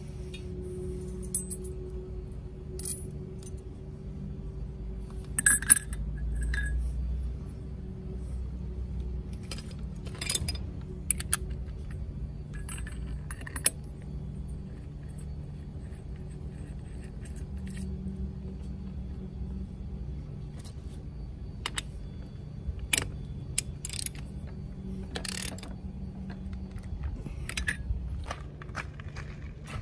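Scattered metallic clinks and clatters of hand tools and metal parts being handled during sail drive reassembly, the loudest about five seconds in, over a steady low hum.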